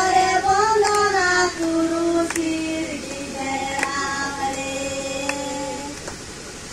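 A girl singing a slow song unaccompanied, in long held notes that step from one pitch to the next.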